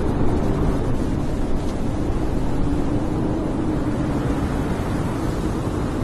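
Blizzard wind blowing steadily: a dense low rush with a faint low howl that wavers slightly in pitch.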